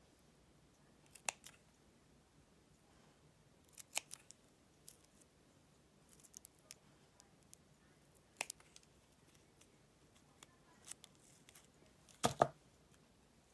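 Small spring-loaded scissors snipping fabric in short, separate cuts. The snips come every few seconds, and the loudest is a quick double snip near the end.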